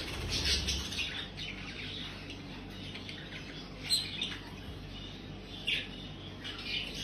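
Budgerigars calling in short, scattered high chirps, with a sharper call about four seconds in and a low thud in the first second.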